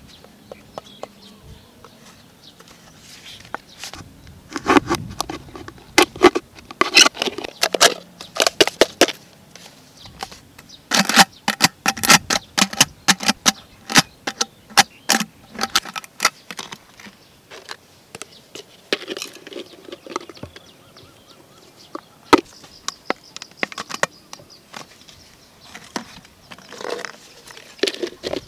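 Thin clear plastic drinking cups being handled, flexed and pushed into one another: irregular runs of crackling and clicking plastic.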